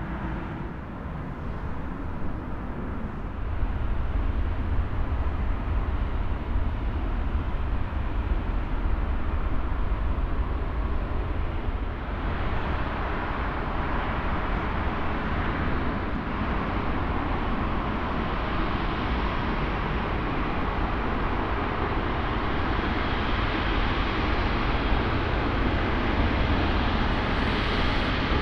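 Airbus A350-900's Rolls-Royce Trent XWB turbofans running at low taxi thrust: a steady rumble and hiss, with a whine that grows toward the end as the jet rolls past.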